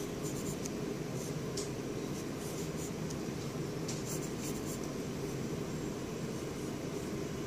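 Pencil scratching across notebook paper in short strokes, in a few bursts over the first five seconds, over a steady low background hum.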